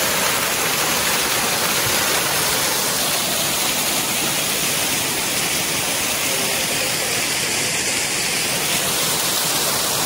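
Small waterfall pouring over rocks into a shallow pool: a steady rush of falling water.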